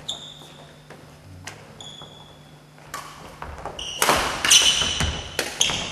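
Sports shoes squeaking and a ball being struck and bouncing in an indoor sports hall, with a few scattered squeaks and knocks at first and then a fast, louder run of them from about four seconds in.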